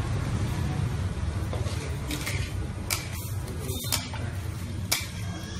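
Several short, sharp knocks and clatters over a steady low rumble.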